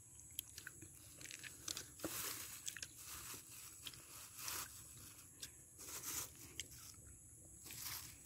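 Raw Indian olives (jolpai) being bitten and chewed, a faint string of short crunches.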